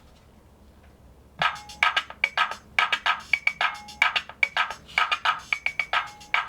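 Small analog drum machine playing a fast, clicky electronic beat with short beeping tones mixed in. It starts about a second and a half in.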